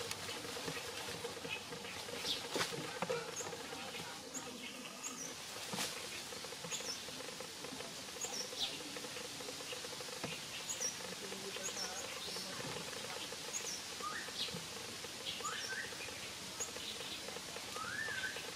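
Outdoor wildlife ambience: many short, high, falling chirps scattered throughout over a steady hiss, with a few rising calls near the end and a couple of sharp clicks.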